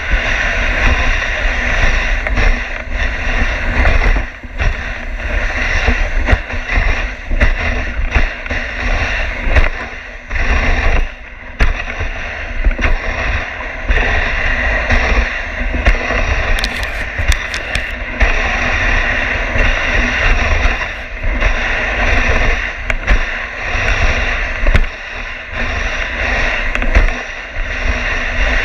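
Dog sled running over a packed snow trail: a steady scraping hiss of the runners on snow with a constant low rumble, broken by frequent bumps and jolts as the sled rides the uneven trail.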